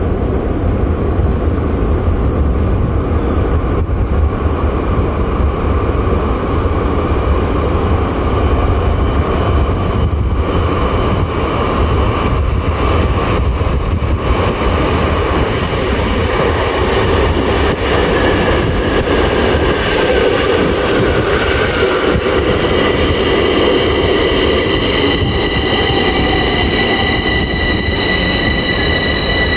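Bombardier metro train running in through the tunnel and into the station: a steady rumble throughout, with a high whine of several tones growing louder over the last ten seconds or so as it slows alongside the platform.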